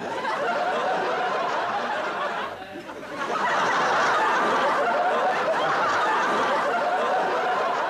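Studio audience laughing, many voices at once. The laughter dips briefly about two and a half seconds in, then swells again and holds.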